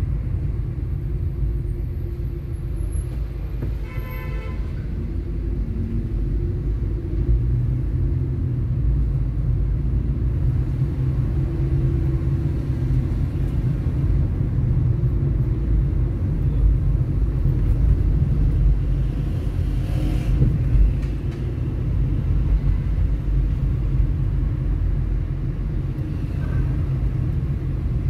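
Car driving through city traffic, heard from inside the cabin: a steady low rumble of engine and road noise, with a car horn sounding once, briefly, about four seconds in.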